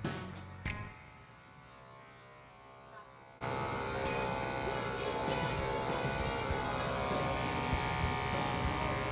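Electric dog-grooming clippers running with a steady buzz, starting suddenly about three and a half seconds in. Before that, the last drum beats of background music fade out within the first second.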